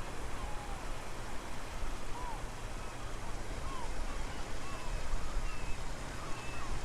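Strong wind buffeting the microphone as a low rumble over a steady rush of shoreline water, with small birds calling in short chirps again and again.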